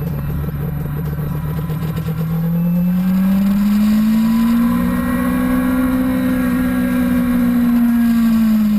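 Sport motorcycle engine heard up close from a camera mounted on the bike. The engine pulls harder about two and a half seconds in, its pitch rising smoothly as the bike accelerates down the straight, then holds steady and eases back slightly near the end.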